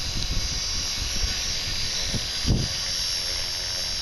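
Align T-Rex 450 Pro V2 electric RC helicopter hovering: a steady high whine from its motor and gears over the whir of the main rotor, whose blades are out of track. Irregular low buffeting runs underneath, strongest about two and a half seconds in.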